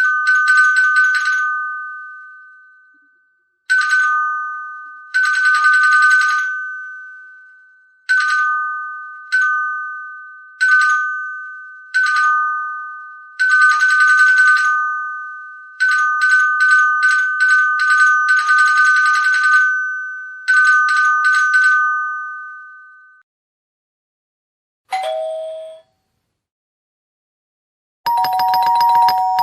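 A doorbell's bell ringing in about ten short and long bursts, struck rapidly over a steady two-note ring, each burst dying away. About 25 seconds in comes a brief falling two-note chime, and near the end a lower-pitched bell starts ringing with rapid strikes.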